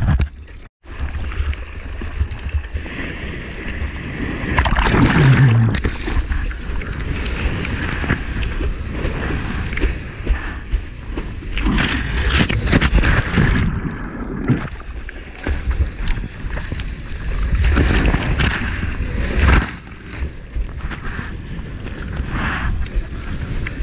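Ocean water rushing and splashing right at the microphone as a surfer paddles into and rides a small wave through the barrel into whitewater, with wind buffeting the microphone as a low rumble. The rush swells in surges, loudest about five seconds in, around twelve seconds in, and near twenty seconds.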